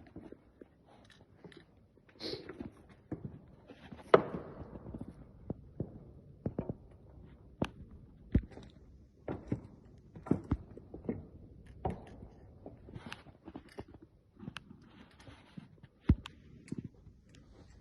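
Irregular footsteps and scattered small knocks and clicks on a hard floor, with no machine running.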